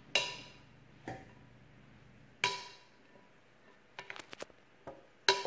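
Wooden spoon knocking against the side of a large glass mixing bowl while stirring a salad, each knock leaving a brief glassy ring. Sharp knocks come about a second apart, with a quick run of lighter taps about four seconds in.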